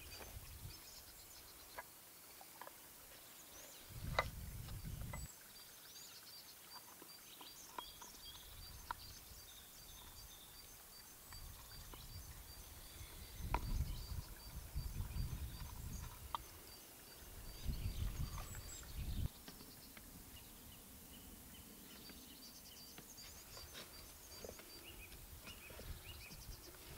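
Outdoor ambience: gusts of wind buffeting the microphone every few seconds, under a faint, high, evenly repeated chirping like an insect or bird, with a few scattered small clicks.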